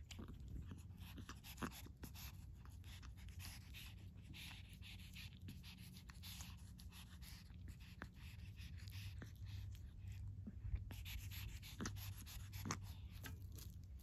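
Kitten lapping milk from a steel dish: a quick, irregular run of small soft clicks.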